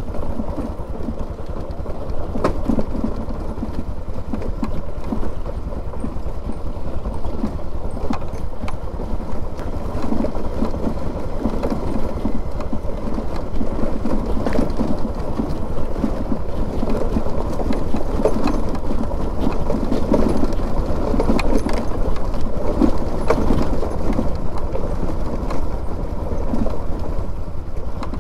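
Bajaj Pulsar NS200 single-cylinder motorcycle running as it is ridden over a rough, stony dirt track, with many short knocks and rattles from the bumps over a steady low rumble.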